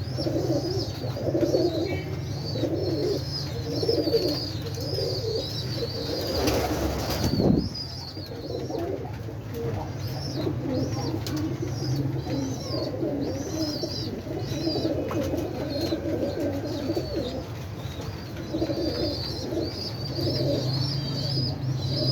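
Pigeons cooing continuously, with higher, quicker chirps from smaller birds over them. A brief rushing noise comes about a third of the way in.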